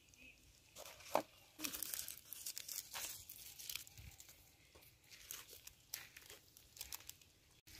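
Crinkly rustling with scattered sharp clicks and taps, starting about a second in.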